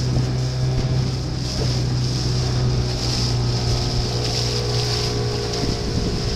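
Boat engine running at a steady speed, a constant low hum, with wind and choppy water rushing past the hull.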